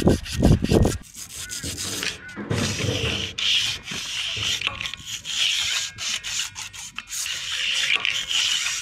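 Electric piston ring filer grinding the end gap of a piston ring, in a series of short hissy grinding passes about a second apart.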